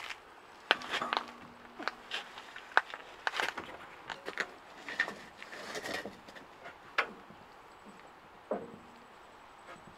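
Wooden chicken-tractor frame on bicycle wheels being lifted and turned around by hand: irregular knocks and clicks of timber and wheels, with a short low creak about a second in and another late on.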